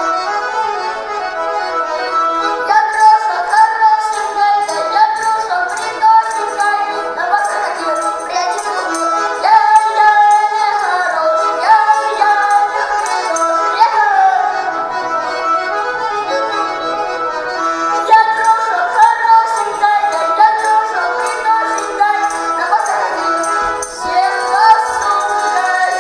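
Button accordion playing a Russian folk tune with melody over sustained chords, accompanied by the short dry clicks of a wooden treshchotka rattle.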